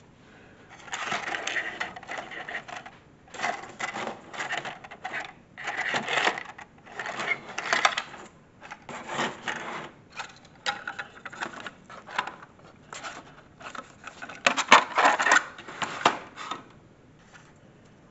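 Hands handling small plastic pieces: irregular bursts of clicking and rattling with short pauses, loudest near the end.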